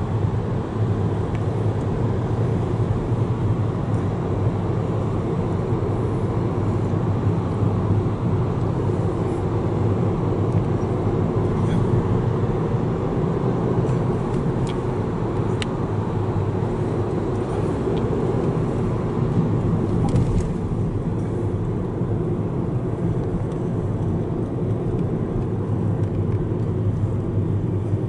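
Steady road and engine noise of a car driving through a road tunnel, heard from inside the car: a continuous low rumble with a few faint ticks in the middle. The upper hiss thins out about two-thirds of the way through.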